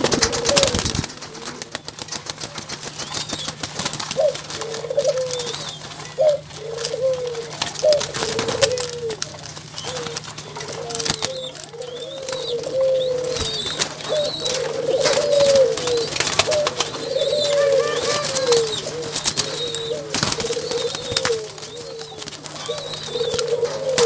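Many Barbary doves (burung puter, ring-necked doves) cooing over and over close by, their coos overlapping. Wings flap and claws scuff and click as the birds crowd together.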